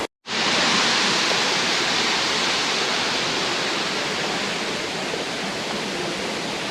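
Steady rushing of a tiered waterfall, water pouring down its rock-step tiers, heard close by. The sound drops out for an instant just after the start, then comes back in full.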